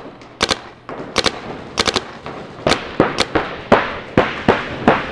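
Paintball markers firing: sharp pops in irregular volleys and quick pairs, coming thicker in the second half, with a short echo after each shot.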